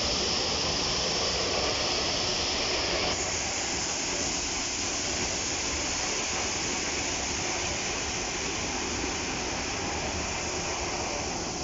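Steady rushing of water from a waterfall, an even hiss-like noise that shifts slightly in tone about three seconds in.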